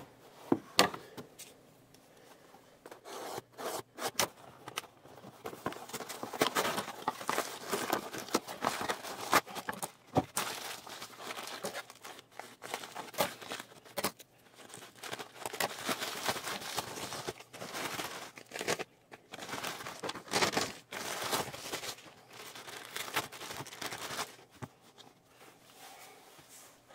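Hands opening a cardboard shipping box and a padded plastic mailer: irregular tearing, crinkling and rustling of packaging, with scattered sharp clicks and scrapes on a desk.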